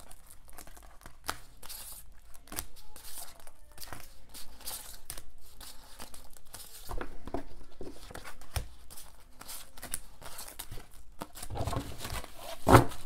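Clear plastic zipper binder envelopes crinkling and rustling as they are handled and shuffled, with a louder knock near the end as the stack is gathered together.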